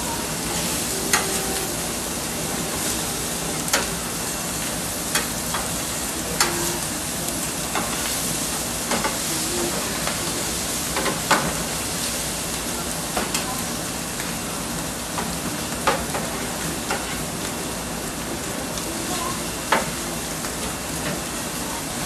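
Fried rice, noodles and meat sizzling steadily on a steel flat-top griddle, with metal spatulas scraping and clacking sharply against the steel every few seconds as the food is turned.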